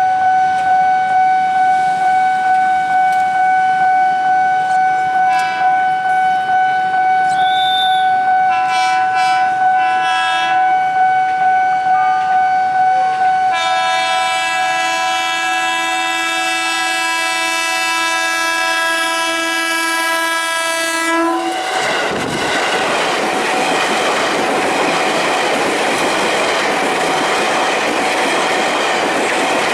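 Level-crossing warning signal ringing in a steady pulse, then a long train horn blast of about eight seconds, the long semboyan 35 warning, that cuts off suddenly as the train arrives. The train then runs fast through the crossing with its wheels clattering over the rails.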